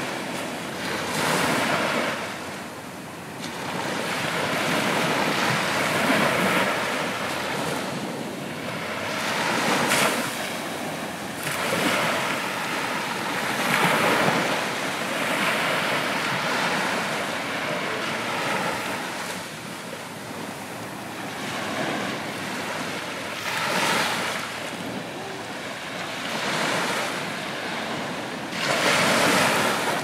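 Ocean surf: waves breaking and washing in, the sound swelling and easing every few seconds.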